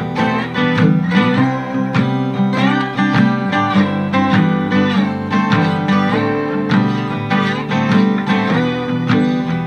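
Background music of quickly picked acoustic guitar in a country or bluegrass style.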